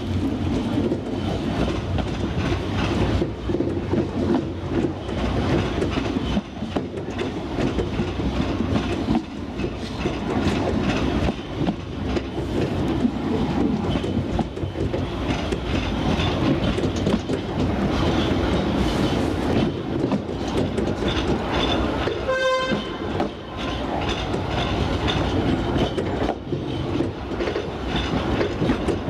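A 2 ft narrow-gauge train carriage running along, its wheels clattering over the rail joints with a steady rumble, heard from an open veranda. Late on there is one short toot of the horn.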